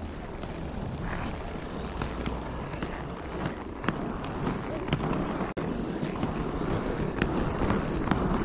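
Inline skate wheels rolling over rough asphalt: a steady rumble with scattered sharp clicks.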